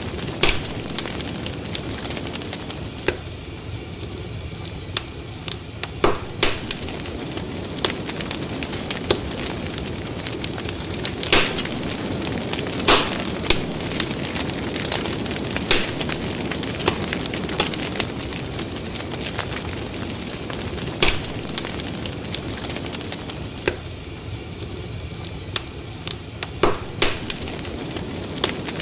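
Bubbles fizzing and popping in liquid: a steady hiss broken by irregular sharp crackling pops, the loudest a little before the middle.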